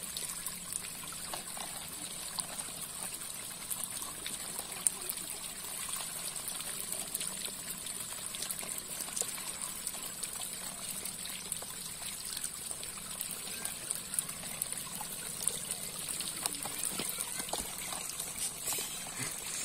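Water trickling steadily through a split-bamboo fish barrier, with many faint wet clicks around a heap of stranded small fish.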